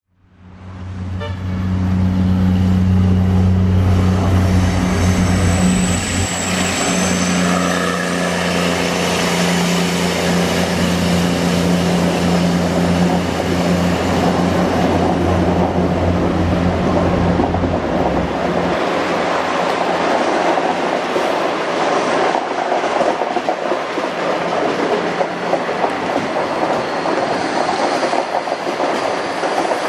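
DF11G diesel locomotives running past with a steady low drone that fades out after about 18 seconds. The wheel-on-rail rumble of the passing 25T passenger coaches carries on from there.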